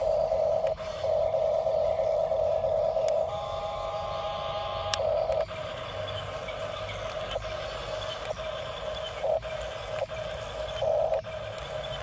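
Electric drive motors of a toy-scale RC tracked bulldozer whining as it drives and turns on gravel, the whine swelling and easing several times as the tracks start and stop. A second, higher whine joins for a couple of seconds near the middle.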